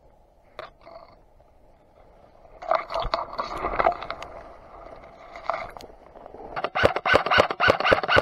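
Leaves and branches rustling and scraping close to the camera, then, from about six and a half seconds in, an airsoft rifle firing a rapid string of shots, about six a second.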